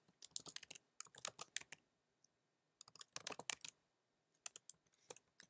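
Typing on a computer keyboard: three quick runs of keystrokes with short pauses between them.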